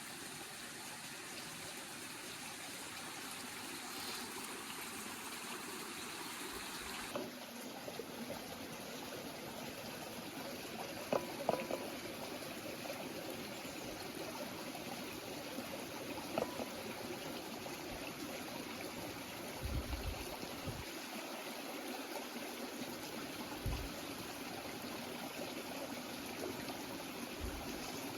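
Water running steadily, like a small stream, with a few brief clicks and soft low thumps over it.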